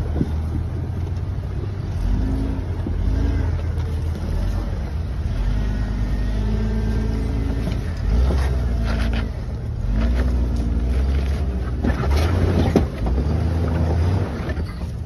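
Jeep Cherokee XJ's engine running under load, revving up and easing off several times as it crawls up a rock ledge, with sharp knocks of tyres and underbody on rock near the middle and end.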